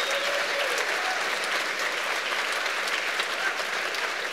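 Audience applauding steadily at the end of a talk, with a few voices calling out near the start.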